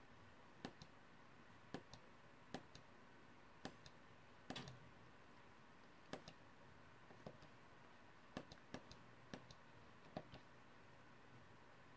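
Faint sharp clicks of car control buttons being pressed, singly or in quick pairs about once a second, while the instrument cluster's menus are stepped through, over a low steady hum.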